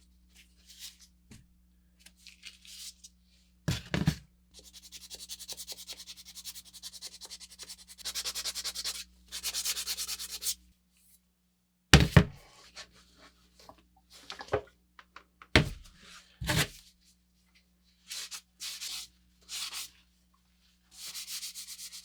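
Rapid back-and-forth rubbing strokes in two runs of a few seconds each. Four loud thunks are spread through the middle, and short scraping strokes come near the end.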